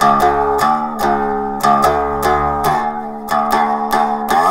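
One-string cigar box diddley bow played acoustically with a slide, picking out a melody: plucked notes about two to three times a second, some sliding up or down into the next pitch.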